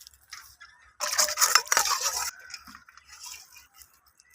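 Greasy cooking pot and dishes being washed by hand: scattered clinks and knocks of utensils, with a louder noisy rush of scrubbing and rinsing lasting about a second, starting about a second in.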